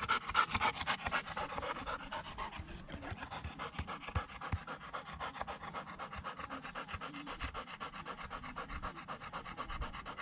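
A golden retriever panting hard and fast in a steady rhythm, a little louder at first: the dog is tired out from running after thrown balls.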